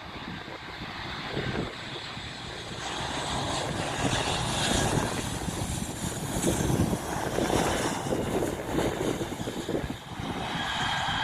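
An airplane's engines passing close, the noise building over a few seconds, holding loud, then easing, with a steady whine coming in near the end.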